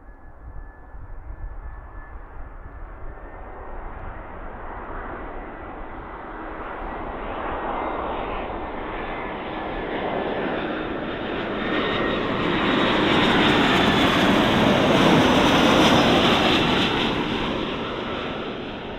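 Airbus A320-214 jet airliner with two CFM56 turbofan engines on landing approach, gear down. A thin whine at first grows into a loud rush of jet noise as it passes overhead. The noise is loudest about two-thirds of the way in, then eases as the aircraft moves away.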